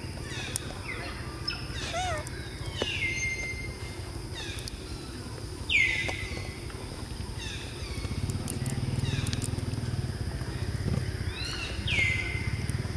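Repeated high-pitched animal calls, each sliding down in pitch and briefly holding at the bottom, about seven in all, the loudest about six seconds in. A low steady rumble runs underneath.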